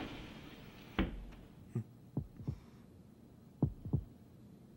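Heartbeat sound effect: slow low thumps in lub-dub pairs, about one beat every second and a half, standing for a sleepless boxer's nervous heart.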